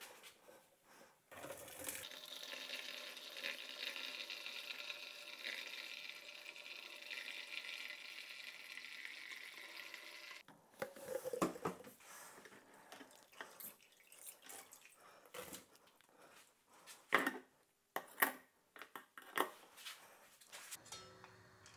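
Hot wort and mashed grain poured from an aluminium stockpot through a mesh strainer into a plastic bucket: a steady splashing pour for about nine seconds, separating the wort from the spent grain. Then a series of clinks and knocks as the metal pot and strainer are handled and set down.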